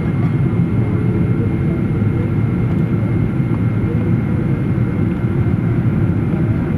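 Boeing 777 airliner's engines and airflow making a steady low roar, with a faint thin whine above it.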